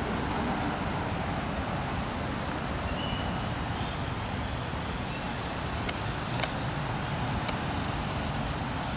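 Steady outdoor background noise, a low rumble and hiss, with a few faint clicks about six to seven seconds in.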